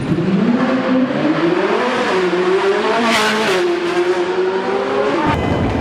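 Lamborghini Aventador Roadster's V12 with sports exhaust accelerating hard. The pitch climbs, drops back twice as it shifts up, then holds high, and the sound cuts off abruptly about five seconds in.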